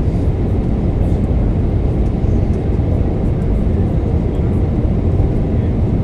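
Steady low drone of cabin noise inside an Airbus A320-232 on descent for landing, the IAE V2500 turbofan engines and the airflow over the fuselage heard at the window seat beside the engine.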